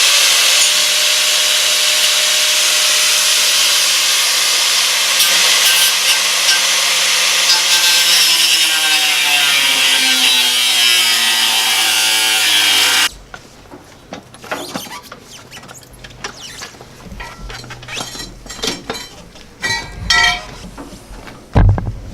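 Power tool cutting through the mower's metal body: a loud, steady grinding hiss whose motor pitch sinks over the last few seconds as it bears down, then stops abruptly about 13 seconds in. After it, scattered clanks and knocks of metal being handled.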